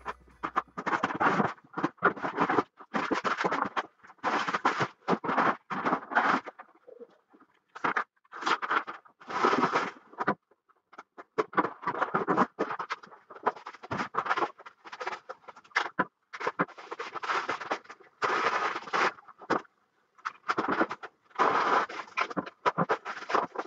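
Cardboard boxes and packing material being handled and pulled open, in irregular bursts of scraping and rustling with short pauses between them.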